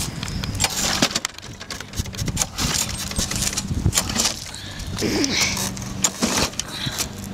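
Walk-behind lawn mower being pull-started by its recoil cord: sharp knocks and rattles over a steady low hum, the engine struggling to start.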